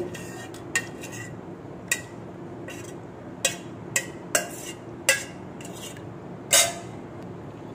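Kitchen utensils clinking and knocking against a pot, about seven short sharp knocks at irregular intervals, as set homemade curd is spooned slowly into a cloth-lined strainer.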